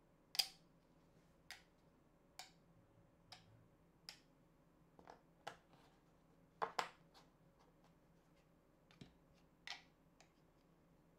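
Small parts of a YC Onion Energy Tube LED light clicking against its end cap as they are handled and fitted on. The clicks are sharp and irregularly spaced, about a dozen in all. The loudest comes near the start, and a quick double click follows about six and a half seconds in.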